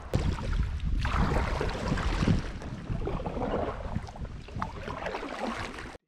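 Water splashing and lapping around a fishing kayak moving on a river, with gusty wind rumble on the microphone.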